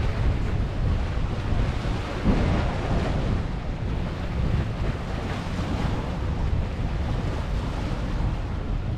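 Wind buffeting the microphone over the wash of sea waves, a steady low rumble with a hiss that swells briefly about two seconds in.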